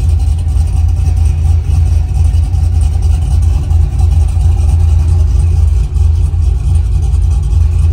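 Cammed 370-cubic-inch LS V8 of a GM truck with dual 3-inch exhaust, cruising at a steady part throttle around 42–45 mph: a loud, even low rumble with a faint engine hum above it, without revving.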